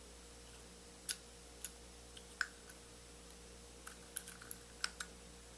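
Scattered light metallic clicks and taps from small lock parts being handled on the bench: a disassembled pin-tumbler rim cylinder, its core, follower and pins. A few isolated clicks come first, then a quicker cluster near the end.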